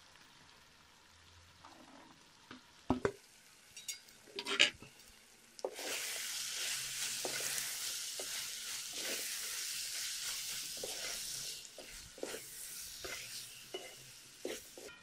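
Keema (minced meat) sizzling in a metal pan while being stirred with a wooden spatula. A few knocks of the spatula against the pan come first; about six seconds in, the sizzle rises to a steady hiss with repeated scraping strokes, then eases off near the end. This is the frying-down stage, with the yoghurt's liquid nearly cooked off.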